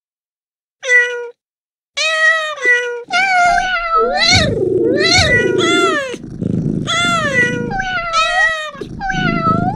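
Cat meow sound effects from Google Search's "cat" easter egg, set off by the paw button. One short meow comes about a second in, then from about two seconds meows follow one after another and overlap, with a low rumble underneath from about three and a half seconds.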